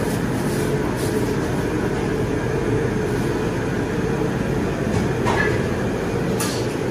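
A steady low rumble throughout, with light scrapes of a metal spatula on a large round iron griddle pan near the end.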